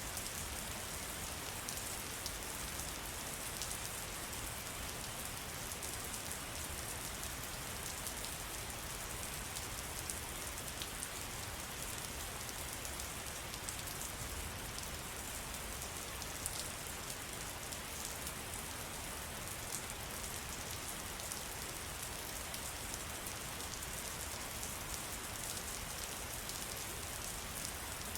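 Steady rain falling in a forest, an even hiss with many small drop ticks scattered through it.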